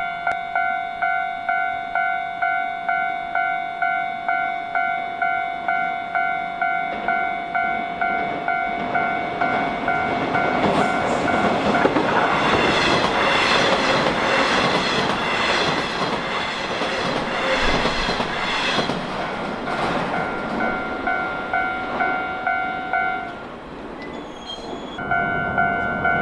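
Japanese level-crossing warning bell dinging steadily, about one and a half strikes a second, while a Nishitetsu electric train passes over the crossing with its wheels clattering on the rails; the train noise swells from about ten seconds in to about twenty. Near the end the bell stops, then starts again a couple of seconds later.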